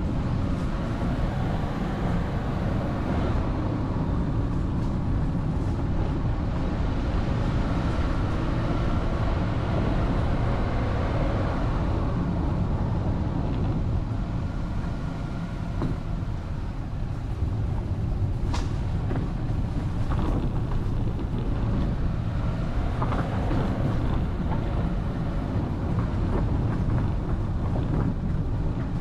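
Vehicle driving along a road: a steady rumble of engine, tyres and wind noise, with the engine pitch rising and falling slightly as the speed changes.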